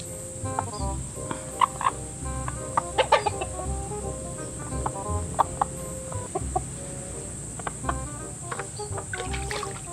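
Domestic chickens clucking in a run of short calls, with a few sharp clicks, the loudest about three seconds in.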